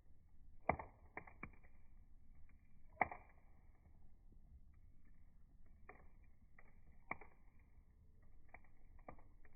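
Wood fire crackling in a rocket fire pit, slowed down: scattered sharp pops and clicks, the loudest about a second in, at three seconds and near seven seconds.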